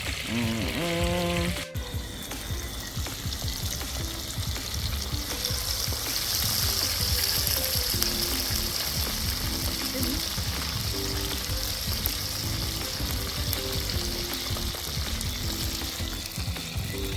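Fish frying in hot oil: a steady sizzle.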